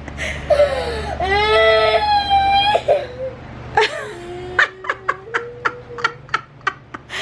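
A young child crying in two long drawn-out wails, with someone laughing in short bursts over the second wail.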